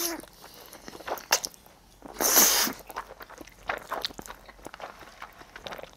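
Close-up eating sounds of a person chewing a mouthful of Buldak spicy instant noodles, with small wet clicks. There is one louder slurp of noodles about two seconds in.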